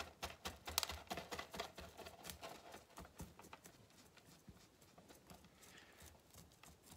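Faint rapid scratching and clicking of a wooden chopstick raking old, clogged soil out of a Chinese elm bonsai's root ball, thinning out to scattered ticks after about three seconds.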